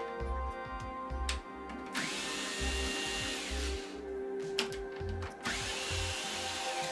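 A power drill/driver spins in two bursts of a second or more each, backing out the Phillips screws that hold a TV's plastic outer bezel.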